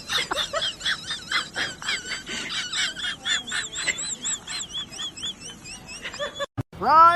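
A small animal making a rapid series of short, high-pitched chirps, about three a second, which stop near the end.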